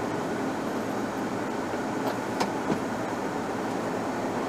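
Steady rumble of city traffic and an idling vehicle heard from inside a stopped vehicle's cab, with a few light clicks about two to three seconds in.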